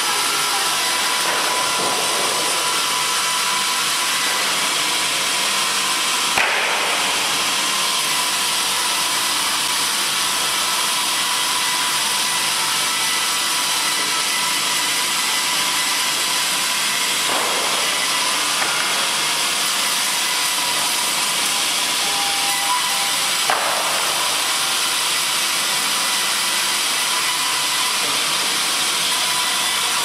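Fimaksan multi-blade circular log saw running and ripping a log into boards: a steady, loud sawing noise, with a few sharp knocks of wood on the machine.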